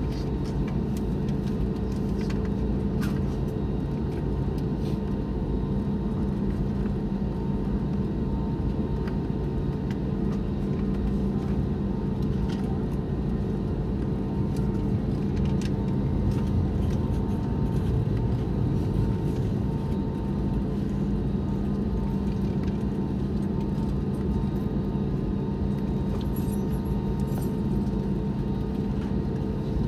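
Cabin noise of an Airbus A321neo taxiing: the engines' steady low hum at taxi power, heard inside the cabin, with a faint higher tone and a few faint clicks.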